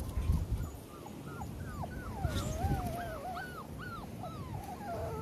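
Six-week-old XL pit bull puppies whining and yipping: many short rising-and-falling cries, several overlapping, with one longer wavering whine about two seconds in.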